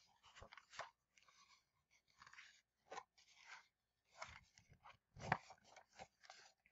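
Faint, scattered rustling and crinkling of a large picture book's stiff pages being turned and handled, with the loudest rustle about five seconds in.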